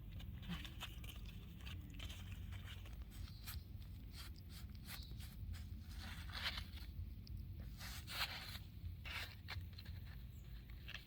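Faint, irregular rustling and crackling: small scrapes and crunches at no steady rhythm.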